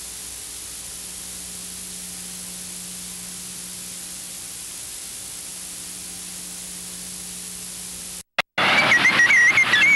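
Steady soundtrack hiss with a faint low hum, no other sound over it. It cuts out briefly about eight seconds in, then a much louder noisy sound with a wavering high tone starts near the end.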